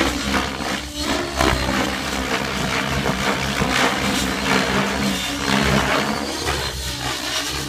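Rave Ballistic 700 radio-controlled helicopter flying 3D aerobatics: the rotor blades whoosh loudly in repeated rushes over a steady drone, and the pitch of the rotor sound slides up and down.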